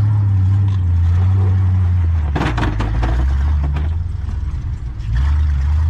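Pickup truck engines running hard as a stuck second-generation Dodge Ram is pulled out of deep snow by another pickup on a tow line, its tyres spinning in the snow. A short burst of clattering and scraping comes about two and a half seconds in.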